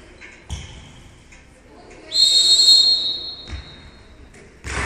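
A referee's whistle blown once for about a second, a steady high tone that rings on in the sports hall. A handball thumps on the hall floor twice before it, and there is a loud thud near the end.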